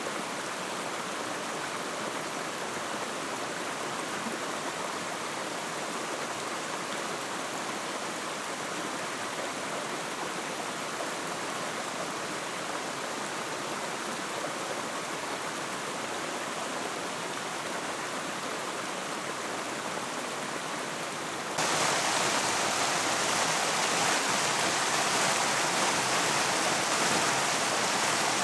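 Rushing water of a mountain stream, a steady rush that suddenly gets louder and brighter about two-thirds of the way through.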